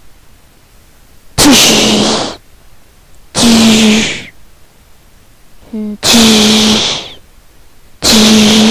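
Lightsaber clash sound effects: four bursts of hiss over a steady low hum, each about a second long and about two seconds apart.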